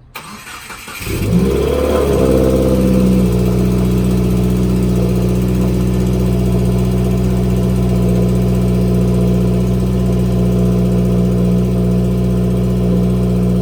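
A 2018 Subaru WRX's turbocharged flat-four, with its muffler and resonator deleted, starts up. It catches about a second in, flares up briefly, then settles into a steady, loud idle. The owner reports a recurring click from this engine at idle.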